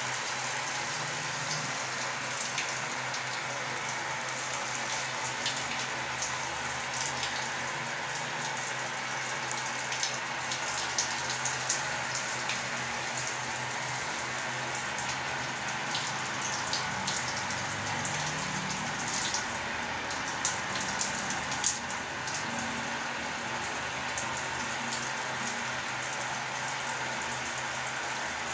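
Steady rain, a dense hiss of small drops with sharper individual drops ticking through it, most often around the middle.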